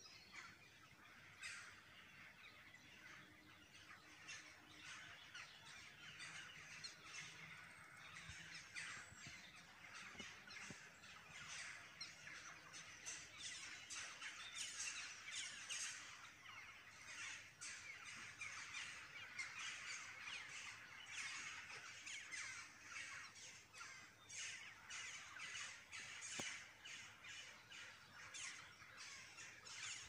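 Faint chorus of many birds twittering and chirping together, a dense run of short high calls with no pause.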